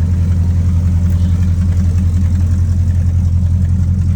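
1979 Chevrolet C10 pickup's engine idling steadily, with a low, even hum.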